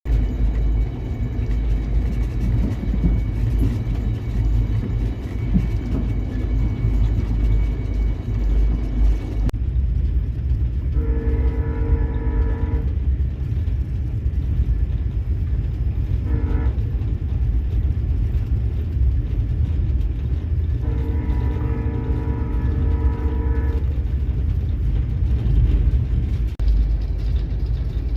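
VIA Rail passenger locomotive horn sounding three multi-note blasts, long, short, long, spread through the middle and later part, over a steady low train rumble. The rumble is the loudest sound throughout.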